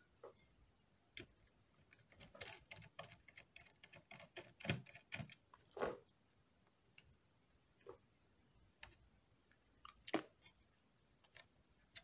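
Faint, scattered clicks and taps of a precision screwdriver and fingers on the plastic and metal underside of a laptop, unscrewing and handling the hard drive's mounting screws. There is one sharper knock about ten seconds in.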